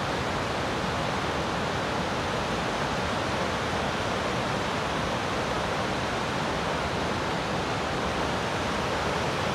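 Waterfall cascading over boulders: a steady, unbroken rush of falling water.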